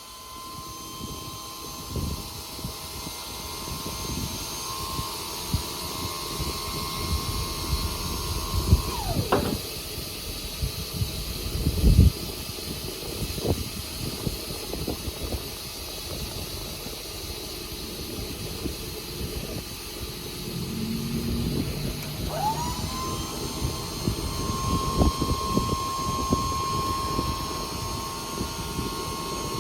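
Electric-hydraulic pump motor of a 2,000-pound truck liftgate whining steadily as it runs, winding down and stopping about nine seconds in. A loud clunk comes a few seconds later, and the pump starts up again about two thirds of the way through and keeps running.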